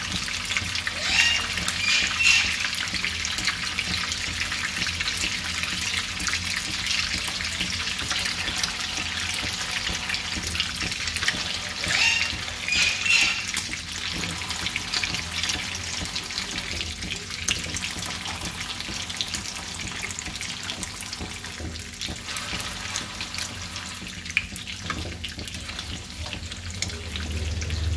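Oil sizzling and crackling steadily around frozen shami kebab patties shallow-frying in a pan. A metal slotted spatula scrapes and clinks against the pan in two brief spells, about a second in and again about twelve seconds in.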